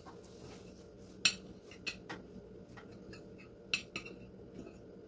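A fork clinking against a plate while cutting an egg-and-cheese omelette on toast: a few sharp, separate clinks, the loudest about a second in and again near four seconds.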